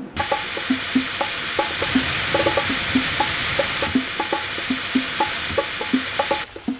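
Hot oil sizzling in a small saucepan, first as black mustard seeds fry, then as sliced onion, garlic and green pepper are stirred in. The sizzle stops suddenly near the end. Background music with a light wood-block rhythm plays throughout.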